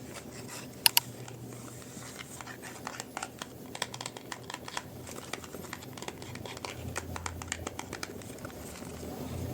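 Soap packaging being opened by hand: wrapper crinkling and tearing in small irregular crackles, with two sharp clicks close together about a second in.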